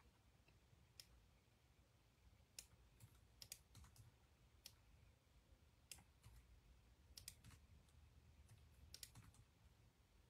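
Faint, irregular clicking of a computer keyboard being typed on, a dozen or so separate clicks with short pauses between them.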